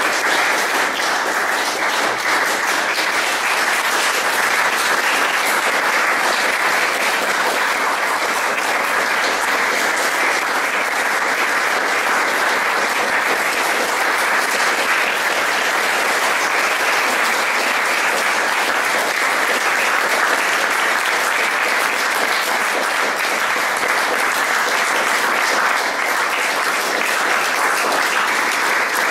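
Audience applauding: sustained, even clapping from many hands at a steady level.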